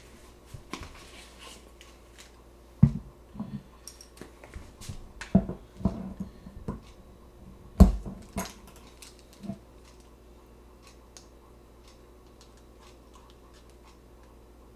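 Spice containers and a measuring spoon being handled on a wooden counter: scattered clicks and taps with a few louder knocks, stopping about ten seconds in.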